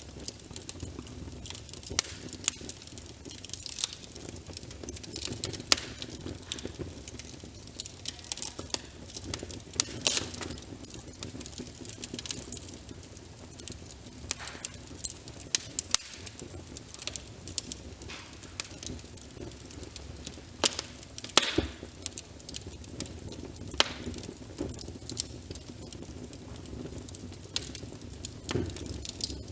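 Wood fire crackling, with frequent sharp pops at irregular intervals, over a steady patter of rain.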